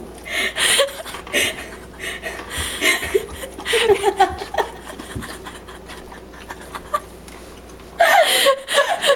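A person laughing and snickering in short, irregular bursts, louder about eight seconds in.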